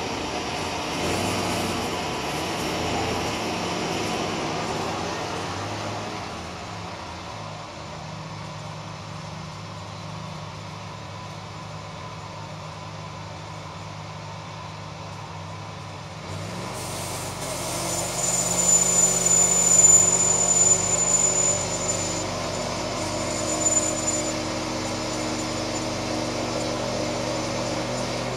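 Homemade bandsaw mill running as its saw head cuts along a spruce log, a steady mechanical drone. About 16 seconds in it grows louder and a high, thin whine joins it.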